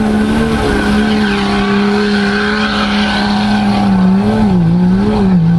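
An SUV's engine running hard at high revs as it plows through a mud bog pit, over a rush of churned mud and water. About four seconds in the revs dip and surge a couple of times, then fall away near the end.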